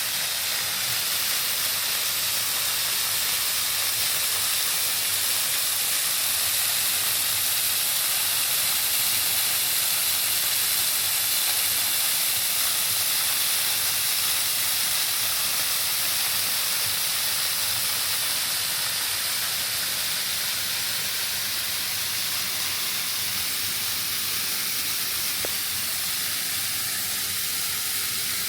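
Waterfall pouring: a steady rushing hiss of falling water.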